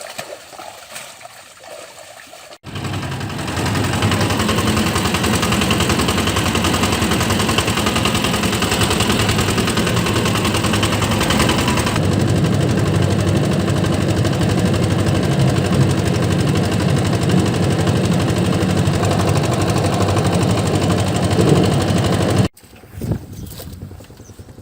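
An engine running steadily and loudly. It starts abruptly about three seconds in and cuts off abruptly near the end.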